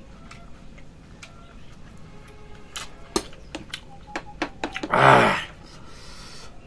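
A metal spoon clinking and scraping against a pan and a small ceramic bowl as salad is scooped out, a handful of sharp clicks a few seconds in. A short vocal sound from a man about five seconds in.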